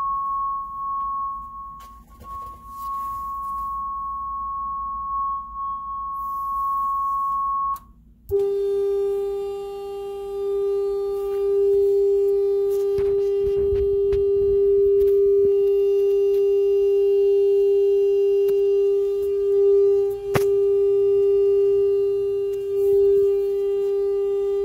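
Steady sine-wave test tones played through a Marantz 2285 stereo receiver under test: one high, pure tone for about eight seconds, then a short break and a lower steady tone with overtones for the rest. A single sharp click sounds late on.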